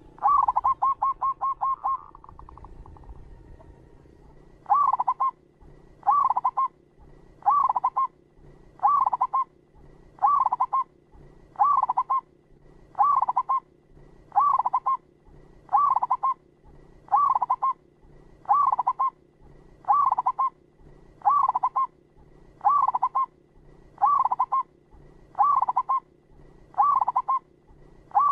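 Zebra dove (perkutut) cooing. A quick run of clipped notes opens, then after a short pause the same short cooing phrase repeats very evenly, about once every second and a half.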